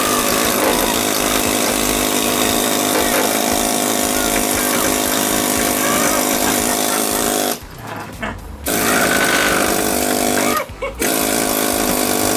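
Pneumatic air chisel hammering rapidly on the rusted sheet steel at the rear of a 1972 VW Super Beetle's engine compartment, chipping out the deck-lid seal lip and welded flange. It stops for about a second some seven seconds in, then stops again briefly near the end.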